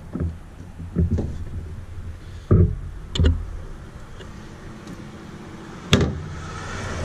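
Several hollow thumps and knocks on an aluminum boat's deck and hatches, the loudest two close together about two and a half to three seconds in, then a sharp click about six seconds in as a hand works the livewell hatch latch.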